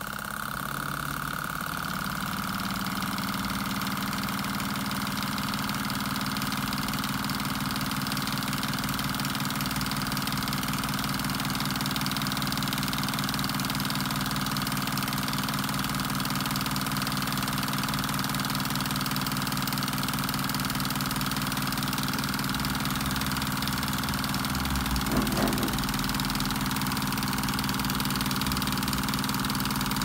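Homemade Stirling engine running steadily, turning its CD flywheel and spinning a small alternator through plastic gears. The running sound comes up to full strength in the first two seconds, with one brief knock about 25 seconds in.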